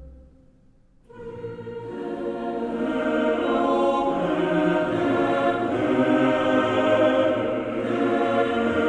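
Background music, choral in character, with long held chords coming in about a second in after a brief near-silent gap.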